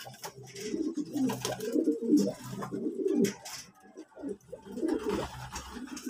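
Racing pigeons cooing: low, warbling coos that follow and overlap one another, with a few short sharp clicks among them.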